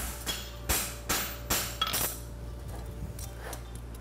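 Hand hammer striking a hot steel horseshoe on an anvil: about five sharp ringing blows in the first two seconds as the farrier blends the fullered branch smooth, then the blows stop and a few light metal clinks follow.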